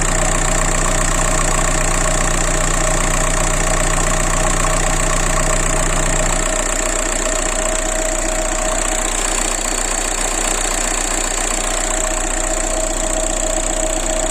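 1.9 TDI diesel engine idling steadily with a knock that the owner cannot identify. A low hum drops away about six seconds in while the engine keeps running.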